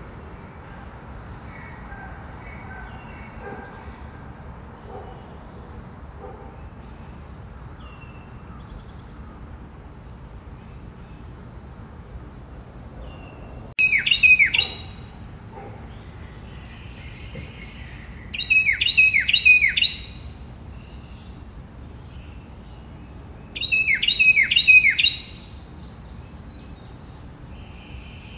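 A bird singing: short phrases of three or four sharp notes, each falling quickly in pitch, heard three times about five seconds apart from about halfway through, over a steady low background hum.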